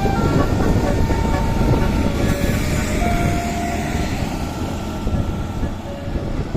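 A tour bus's Basuri telolet multi-tone air horn playing a melody of held, changing notes over the low running of the bus engine and traffic. The tune fades out near the end.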